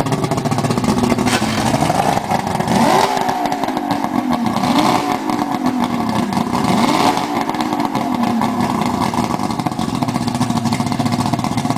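1999 Yamaha OX66 225 hp fuel-injected V6 two-stroke outboard running out of the water, revved up and back down a few times between steady running.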